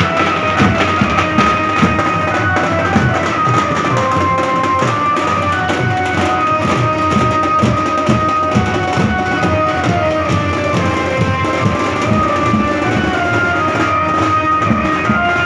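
Live band music: drums, including a large bass drum, beating a fast steady rhythm under a melody of held notes that step up and down in pitch.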